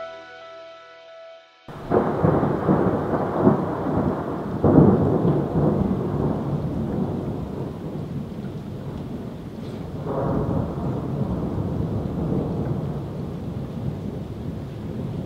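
Thunderstorm: steady heavy rain with thunder rumbling. The thunder is loudest about five seconds in, and another roll comes near ten seconds. It starts suddenly as a short stretch of music cuts off about two seconds in.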